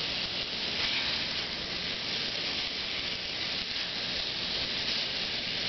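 Crumbled sausage frying in a hot pan, a steady sizzle.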